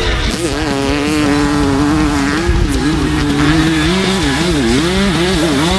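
Two-stroke motocross bike engine at high revs. Its pitch holds steady for a couple of seconds, then rises and falls repeatedly as the throttle is worked on and off.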